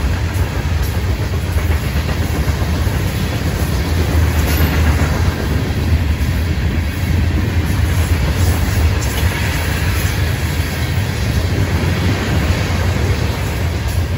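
Freight cars of a Florida East Coast Railway train rolling past: a steady, deep rumble of steel wheels on the rails.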